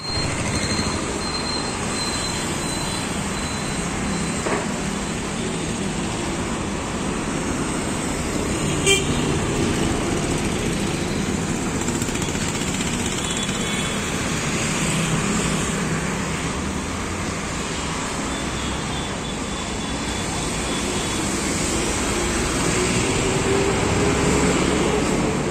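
Steady road traffic noise with short horn toots now and then, and a vehicle's engine rising in pitch near the end.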